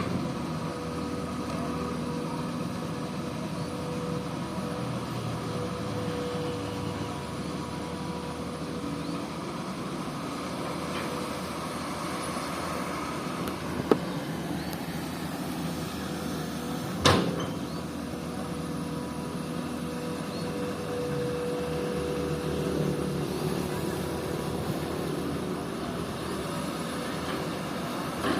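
Komatsu PC-200 excavator running steadily with a held humming tone, and two sharp knocks about three seconds apart around the middle.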